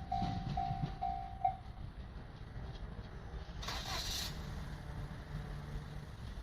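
Japanese level-crossing warning bell ringing in even dings, about two a second, that stop about a second and a half in as the crossing reopens. Road traffic follows, with a short whooshing rush about four seconds in and then a steady low engine hum.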